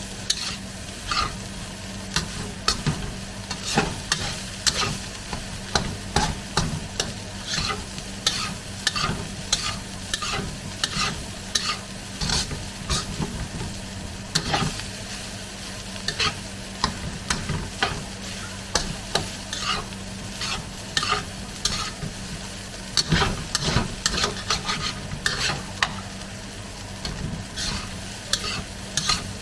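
Egg fried rice sizzling in a hot pan while it is stirred and tossed with a utensil: repeated scraping strokes, roughly two a second, over a steady sizzle.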